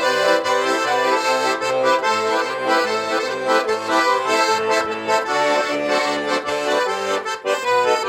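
Instrumental break of a pop-folk song: an accordion plays the melody over a steady, rhythmic bass line.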